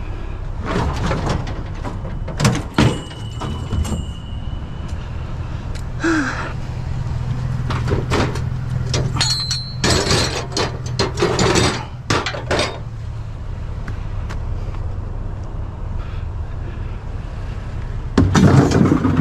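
Scattered metal clanks and knocks as scrap is handled: a stove top's steel burner grate and parts being lifted and pulled apart, and items shifted in a pickup bed. The loudest clatters come about ten to twelve seconds in and again near the end, over a steady low hum.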